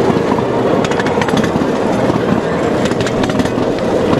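Ride-on miniature train with a small diesel engine running along its track: a steady engine and wheel rumble, with irregular clicks of the wheels on the rails.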